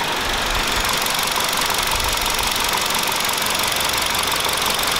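Hyundai YF Sonata four-cylinder petrol engine idling steadily and smoothly, with no stumble as water is poured over the intake manifold joint: the freshly replaced intake manifold gasket no longer leaks air.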